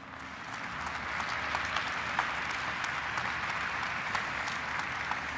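Audience applauding, many hands clapping at once; it swells over the first second, then holds steady.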